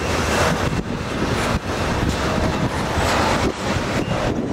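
Double-stack intermodal well cars loaded with containers rolling past on the rails: a steady, loud rolling noise of steel wheels on track with a few brief dips in loudness.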